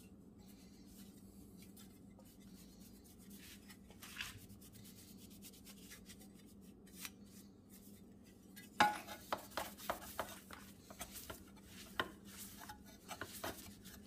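Cloth rag rubbing polish off a metal headlight reflector housing, with clinks and scrapes as the metal part is handled on the bench. Mostly a steady low hum with a few soft taps at first, then a knock about nine seconds in, followed by a busy run of rubbing and clicking.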